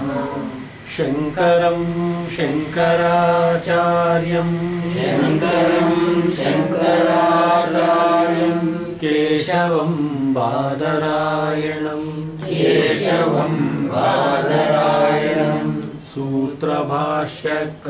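A man and a woman chanting a devotional invocation together in sung recitation, holding long notes that glide down at phrase ends, with brief pauses for breath.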